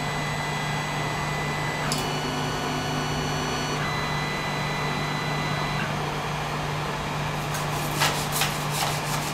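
Creality Ender-3 3D printer running: its cooling fans give a steady hum, and its stepper motors whine with a few thin steady tones for a few seconds while the print head and bed move to the levelling position. A few light clicks near the end.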